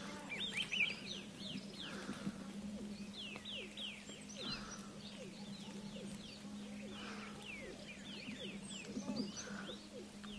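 Small birds chirping: many short, quick downward-sliding chirps, overlapping and scattered throughout, faint, over a steady low hum.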